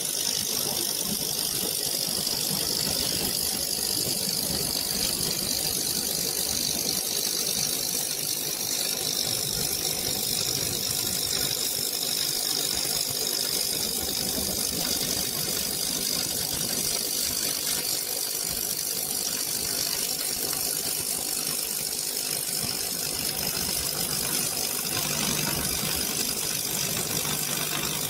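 Steady crackle of a stick-electrode welding arc burning on steel, held without a break, from a homemade transformer welding machine run through a current regulator.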